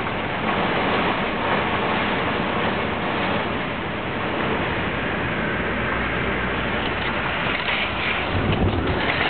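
Heavy thunderstorm rain with wind, a steady rushing noise.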